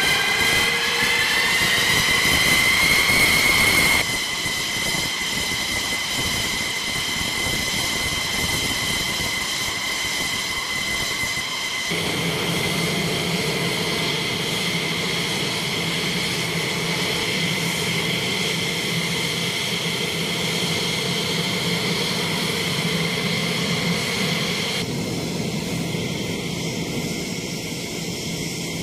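Jet fighter engine running on the ground. Several high whining tones rise in pitch over the first few seconds as the engine spools up, then hold steady, with a low hum joining partway through.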